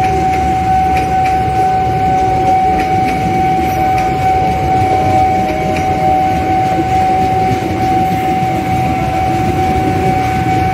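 Passenger train coaches rolling past on steel rails: a steady rumble with faint wheel clicks about every half second, under a constant high-pitched whine.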